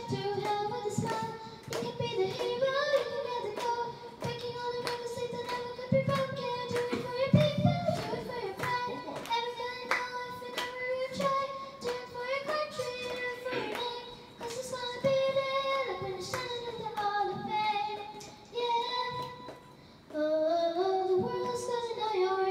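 A girl singing a song into a handheld microphone, holding some notes and gliding between others.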